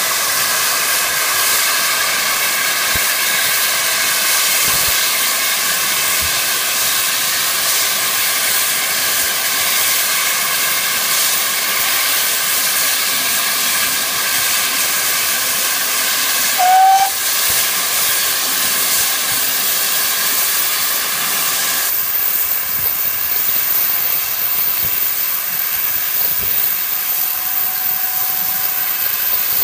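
A GWR Hall class steam locomotive standing with its safety valves blowing off: a loud, steady hiss of escaping steam, the sign that the boiler is at full pressure. The hiss eases about three-quarters of the way through, and there is a brief short whistle-like note a little past halfway.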